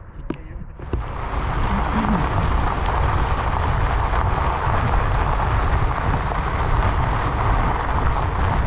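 Wind buffeting the microphone over the tyre noise of a bicycle rolling along a dirt trail. It sets in about a second in and then stays steady.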